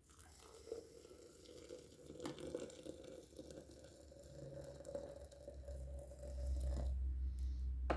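Hot water poured from an electric kettle into a French press onto coffee grounds: a steady pouring splash whose pitch rises slightly as the carafe fills, stopping about seven seconds in.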